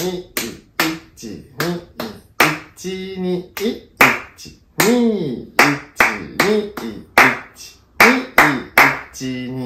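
Hand claps beating out a 2/4 rhythm exercise of quarter and eighth notes, sharp claps two to three a second in an uneven pattern of quick pairs and single beats, with a man's voice counting 'ichi, ni' along with them.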